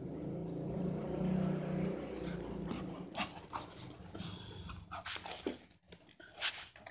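A dog growls low and drawn-out for about three seconds, then scattered clicks and rustles follow.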